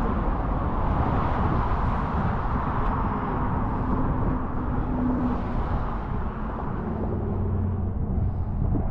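Strong wind buffeting the microphone as a steady low rumble, with a faint engine hum from passing traffic in the middle.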